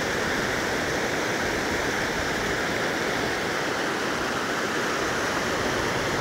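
Stream water rushing over rocks, a steady even rush.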